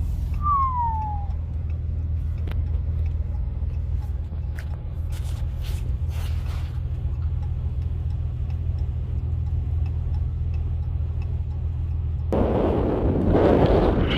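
A vehicle's engine idling with a steady low rumble, with a brief falling whistle about half a second in. A louder rushing noise starts near the end.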